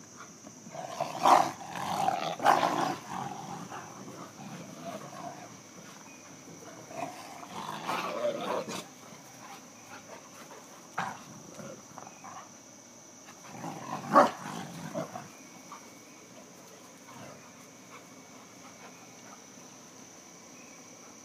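Rottweiler barking in three short bouts, with a steady high chirring of insects underneath.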